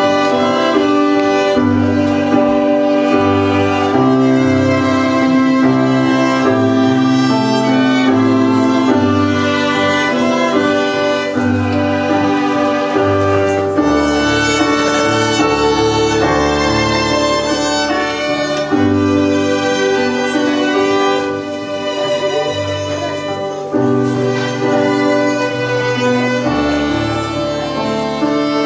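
Three violins playing a slow, held melody together, with a low bass line beneath them.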